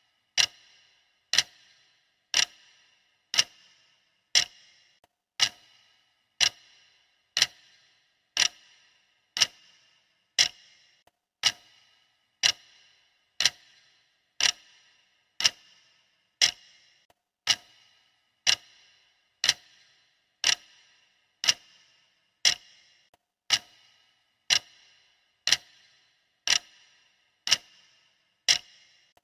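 Clock ticking steadily, one sharp, even tick each second.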